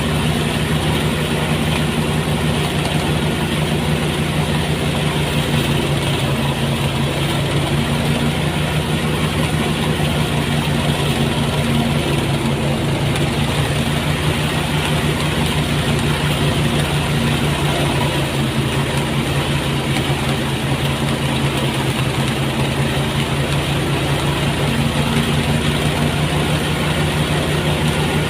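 Motorised rice thresher running at a steady speed: an even, unbroken engine drone.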